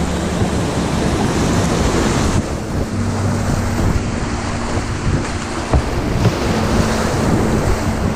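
Rushing whitewater churning and splashing around a canoe running a rapid, with wind buffeting the camera microphone.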